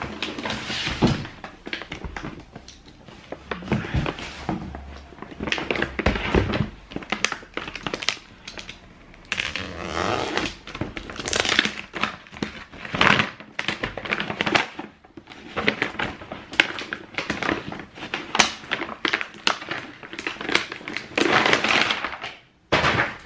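Cardboard shoebox and its paper wrapping being handled: irregular rustling and crinkling with knocks of the box.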